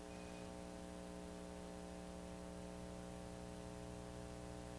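Faint, steady electrical mains hum with background hiss: a low buzz of evenly spaced tones that does not change.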